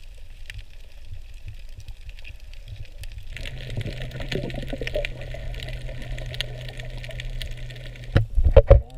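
Underwater sound picked up by a camera over a coral reef: a low water rumble with a scatter of small clicks. About three seconds in a steady low hum joins, and near the end come a few loud rushing bursts.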